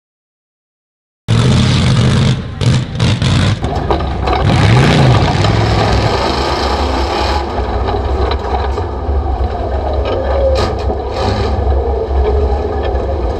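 Chevrolet pickup truck's engine revving hard as it runs a dirt course, starting after about a second of silence, with the engine pitch rising and falling about four to five seconds in, then running on steadily.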